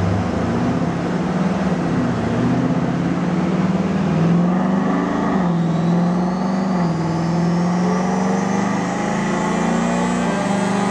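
Ford Mustang's engine and exhaust running under load on a chassis dyno. The pitch rises, drops sharply about five seconds in, then climbs slowly again.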